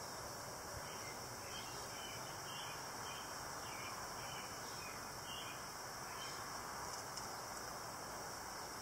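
Honeybees buzzing around an open hive, a steady hum, with faint short bird chirps in the middle.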